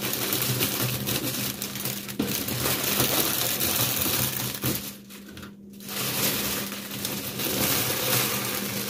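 Plastic crinkling and rustling in continuous handling, briefly pausing about five seconds in, over a low steady hum.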